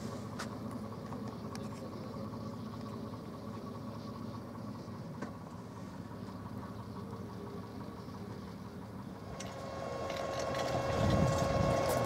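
A car engine idling steadily. Near the end a different, louder steady hum with some rustling takes over.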